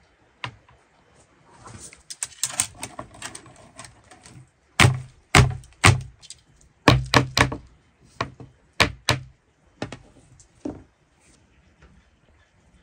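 Rustling and light clicks, then about a dozen heavy chopping strokes on wood, loud single thunks, some coming in quick pairs and threes.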